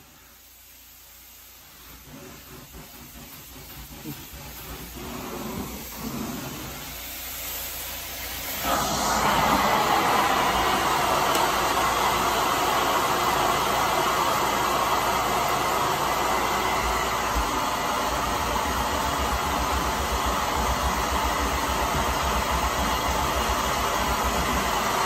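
Carpet-cleaning extraction machine's vacuum running with a steady, loud rushing hiss. It builds gradually, then jumps louder about nine seconds in and holds steady.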